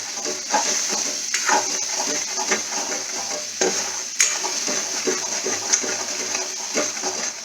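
Cashew paste and cream sizzling in ghee in a pan as they are stirred, with a steady frying hiss and irregular knocks and scrapes of the stirring utensil against the pan.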